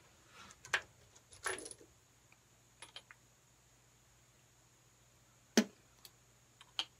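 Scattered clicks and light metallic clatter of hand tools and sockets being picked up and handled, with one sharp click about five and a half seconds in, the loudest.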